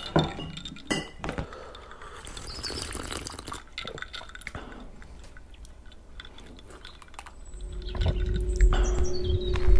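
Glass bottles clinking and liquid sloshing and pouring, with a few sharp clinks in the first second or so and a brief hiss a few seconds in. From about eight seconds in, a low rumble and a steady hum rise and grow louder.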